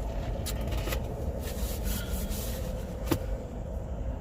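Rustling and scraping of things being handled, with one sharp knock about three seconds in, over a steady low rumble.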